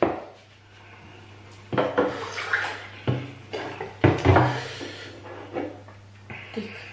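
Wet mukbang eating sounds as banku and okra stew are eaten by hand: slurping and squelching in several short bursts, the loudest about four seconds in, over a low steady hum.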